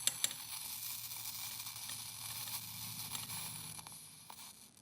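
Rechargeable electric arc lighter's arc running at a candle wick: a steady high hissing buzz with a faint low hum under it, after two quick clicks at the start. It fades near the end.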